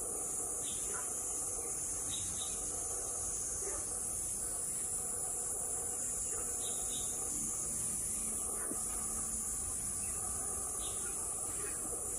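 Steady high-pitched chorus of insects buzzing without a break, with a few faint short chirps lower down.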